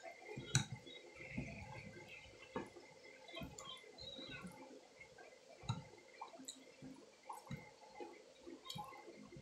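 Quiet eating sounds: wet mouth clicks and chewing, with fingers pressing and gathering rice on a plate. Scattered short clicks and soft thumps, the sharpest about half a second in.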